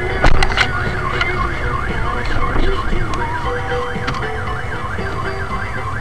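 An electronic siren wailing rapidly up and down, about three sweeps a second, over a steady low rumble. A few sharp knocks come in the first half-second, the loudest just after the start.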